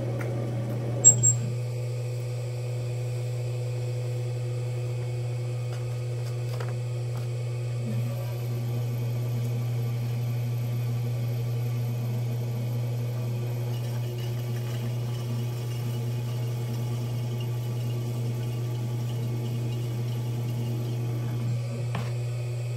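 Electric potter's wheel humming steadily as the wheel head spins at a constant speed, with two sharp clicks about a second in.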